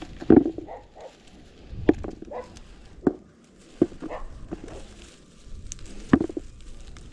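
Olive branches rustling as olives are picked off by hand, with five short knocks spread through.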